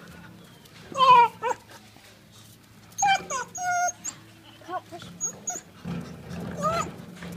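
A dog whining and yelping at a wheelbarrow in short calls that bend in pitch, with a rough, rasping growl-like call about halfway through: an agitated dog.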